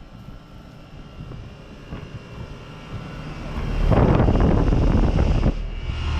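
Central air-conditioning condenser unit running, getting louder as it is approached: about four seconds in, a loud rush of fan air for a second and a half, then a steady compressor hum with a clear tone.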